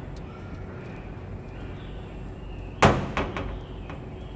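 A single loud bang about three seconds in, followed quickly by two or three quieter knocks, over a steady low background hum.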